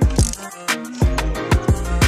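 Background music with a heavy beat: deep kick drums that drop in pitch, about two a second, under sustained pitched notes.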